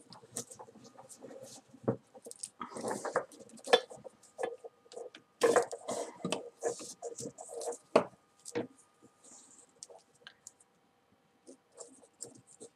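Paracord rubbing and scraping as a needle and cord are worked through a tightly woven cobra-knot collar and the stitch is pulled taut, in irregular rustles, scrapes and small clicks. There is a lull near the end.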